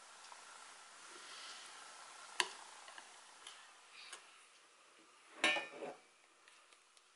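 Quiet handling of baking things: a sharp click about two and a half seconds in, a few faint ticks, and a short clatter of clicks and rustles about five and a half seconds in, the loudest moment, as a spatula, bowls, colour jars and a plastic piping bag are handled. A faint steady hum lies underneath.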